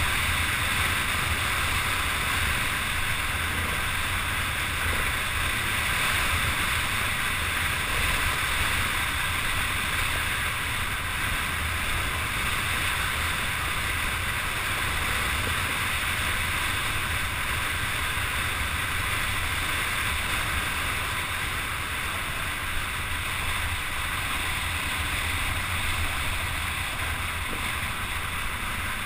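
Steady rush of wind over a helmet-mounted camera's microphone during an off-road ride, with a low rumble underneath.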